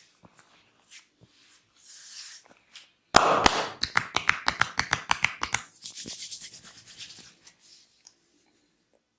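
Massage percussion by hand: a quick even run of about fifteen sharp slaps, roughly six a second, loudest at the start. It is followed by a couple of seconds of hands rubbing over skin, with softer rubbing before the slaps.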